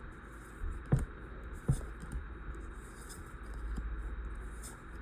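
Hands handling a Pokémon card booster pack and its cards: faint rustling, with sharp knocks about a second in and again near two seconds, over a steady low hum.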